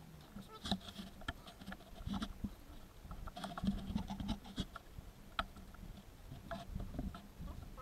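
Handling noise from fitting the air conditioning drive belt around the engine's pulleys: scattered light clicks, scrapes and rubbing of the belt and gloved hands, with the odd dull knock of a wrench on the tensioner.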